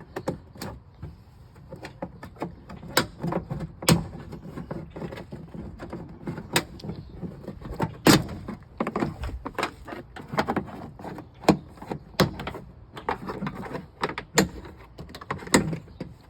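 Plastic door-panel retaining clips snapping loose one after another as the inner trim panel of a 2002 Chevy Silverado extended-cab rear door is pried off with a panel removal tool. About a dozen sharp snaps come at irregular intervals, with scraping and rattling of the panel between them.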